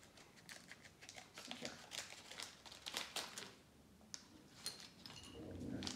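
Faint crinkling and crackling of a LEGO minifigure's plastic blind-bag pouch being cut open with scissors and handled. The crackles come thickest in the first three seconds or so, then come again more sparsely.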